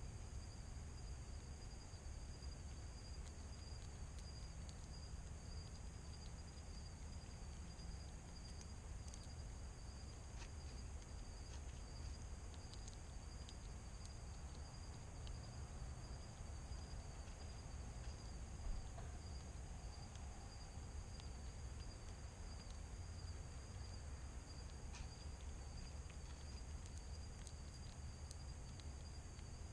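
Evening insect chorus: crickets trilling steadily in a high, finely pulsing tone over a low background rumble, with a few faint scattered clicks.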